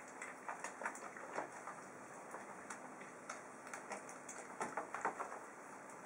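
Soapy water in a plastic tub sloshing and splashing as hands wash a pigeon in the suds: irregular small splashes, with a flurry about a second in and another near the end.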